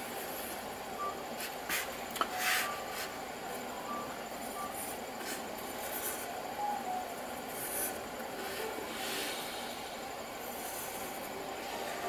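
Pencil drawing on paper: short soft scratching strokes at irregular intervals over a steady background hiss.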